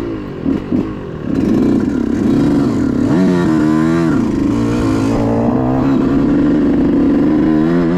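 2018 Yamaha YZ125's 125cc single-cylinder two-stroke engine under throttle while riding: a few short blips, then held at high revs from about a second in. Near three seconds the revs climb sharply and drop back about a second later. This is the bike being run toward wide open for main-jet testing.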